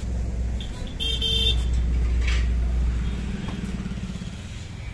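A vehicle engine running with a steady low hum that dies away about two-thirds of the way through, and a brief high-pitched toot about a second in.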